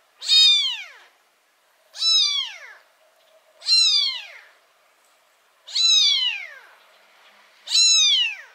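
A black kitten about three weeks old meowing, crying five times about every two seconds: each call is short and high-pitched, falling steeply in pitch.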